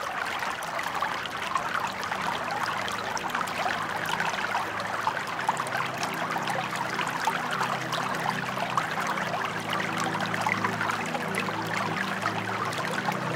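Ambient electronic sound piece: a dense, even crackle of tiny clicks over a low drone of several held tones. The drone fades in during the first couple of seconds.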